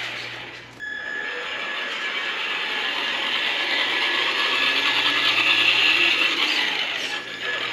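Traxxas Rustler remote-control car's electric motor and gears running with a steady whine, dropping away just under a second in before picking up again, with another short dip near the end.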